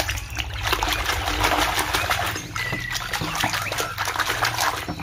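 A hand squelching and sloshing through thick slime in a basin, a continuous wet, crackling slop as it gropes about for a buried toy gun.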